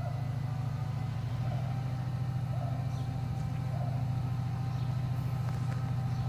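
Diesel locomotives idling with a steady low drone: Class 68 No. 68022 coupled to Deltic D9009, waiting to move off the depot.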